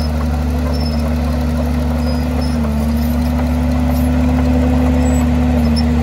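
Heavy diesel engine of a construction machine running steadily under a constant low hum, getting slightly louder about four seconds in.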